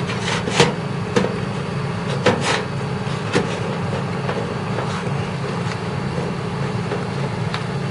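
A few sharp clicks and knocks of computer parts being handled in an opened PC case, mostly in the first few seconds, over a steady low hum.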